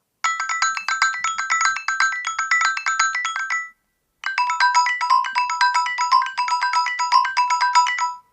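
A Google Pixel 9 ringtone playing: a fast run of short, bright electronic notes in two phrases, with a brief pause between them a little before halfway. The second phrase has a steady repeated note running under it.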